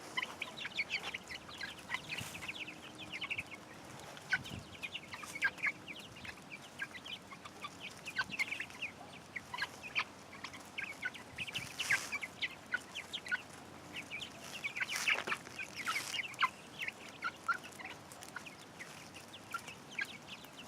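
A flock of chickens clucking and chirping continuously, with many short overlapping calls.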